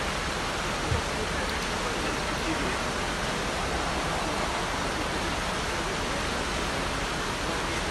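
Fast-flowing floodwater rushing steadily. A short low thump about a second in.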